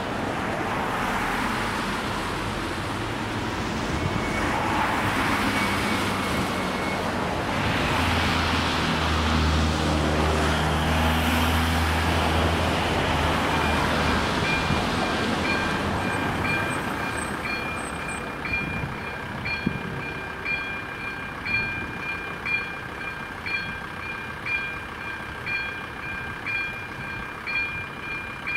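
Road traffic passing over a railway level crossing, with car and van engines and tyre noise. About halfway through, the crossing's electronic warning bell starts up, ringing regularly at about one strike a second over a steady high tone: the crossing is warning of an approaching train.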